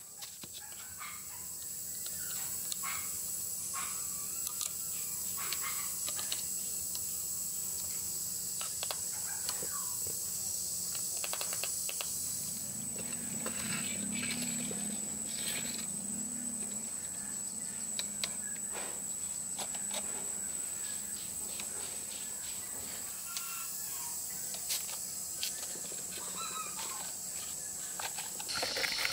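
Plastic chair shell being cut with snips and pried off a cast cement pot: scattered snips, clicks and cracks of plastic, with handling of the tools and pot. Under them runs a steady high-pitched outdoor background whine with birds.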